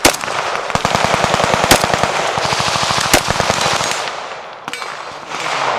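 Gunfire on a shooting range: a single loud shot, then a rapid burst of automatic fire lasting about two seconds, with a few louder separate shots over it. It fades to echoing range noise in the second half.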